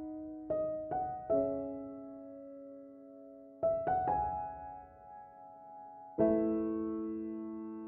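Slow, gentle background piano music: sparse chords struck a few at a time and left to ring and fade away.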